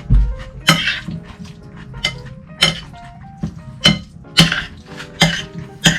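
Cutlery clinking and scraping against a dish in a dozen or so short, irregular knocks while the tartare is handled, over background music. There is a low thump right at the start.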